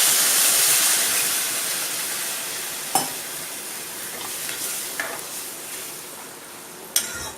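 Water added to a hot pan of sautéed vegetables and spices sizzling loudly, the sizzle slowly dying down. A few sharp clicks of a spoon against the pan as it is stirred.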